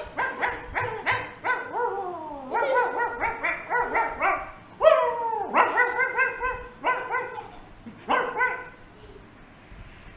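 A person's voice imitating a dog: a run of short barks and yips, a few each second, broken by a couple of long falling whines, tailing off near the end.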